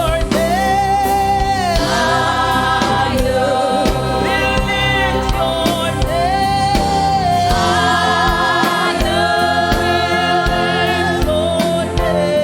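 Gospel praise-and-worship singing: voices in chorus holding long, wavering notes over a live band with a steady beat.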